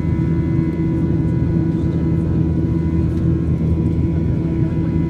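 Cabin noise of a Southwest Airlines Boeing 737-800 climbing out after takeoff: its CFM56-7B turbofan engines running in a steady drone with several steady tones held through it.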